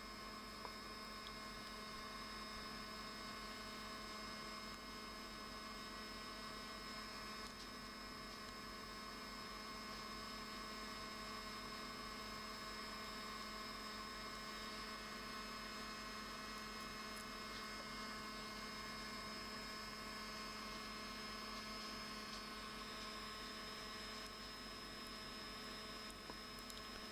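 Steady electrical hum with several faint, unchanging high tones over a light hiss; nothing else happens.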